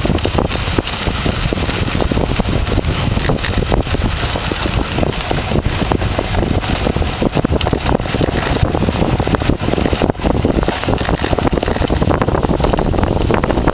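A dog sled running over snow: steady wind buffeting the microphone over the sled's scraping and rattling, with frequent small knocks.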